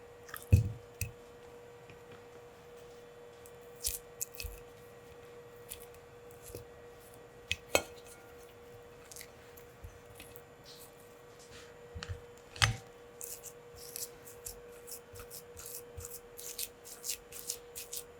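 Kitchen utensils and dishes handled during food preparation: scattered taps, clicks and light scraping, with a dull knock about half a second in and quicker, denser clicking in the last few seconds. A faint steady hum runs underneath.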